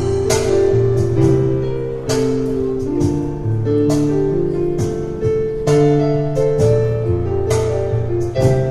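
Piano music: a fast piece played as firmly struck chords, a fresh attack roughly every second over held bass notes.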